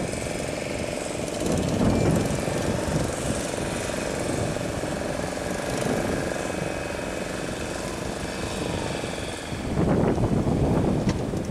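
Outboard motor running under a steady rush of breaking surf as a small fishing boat pushes out through the waves. About ten seconds in, a wave breaks around the boat's bow and the wash gets louder.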